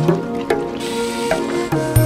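Instrumental background music: a run of plucked notes over a deep bass note that swells and bends upward.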